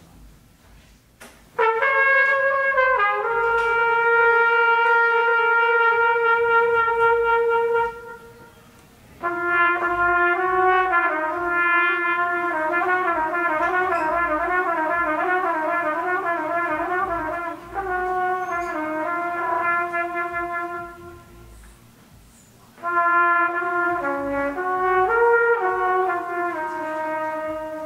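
Trumpet played live in long held notes, in phrases separated by short pauses for breath. Through the middle phrase the note wavers quickly in pitch, and near the end the notes bend.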